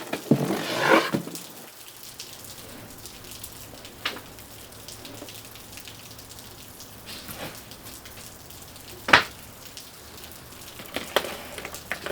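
Steady rain hiss, with a rustle in the first second and a few sharp knocks or clicks; the loudest knock comes about nine seconds in.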